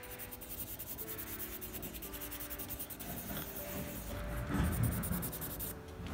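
Felt-tip marker scribbling on paper in quick back-and-forth strokes, with a louder, duller rub or knock about four and a half seconds in.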